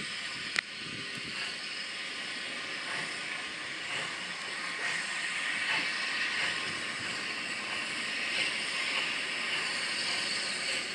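Steam locomotive, the L&YR Class 27 0-6-0 No. 52322, hissing steadily as steam escapes, with one sharp click about half a second in.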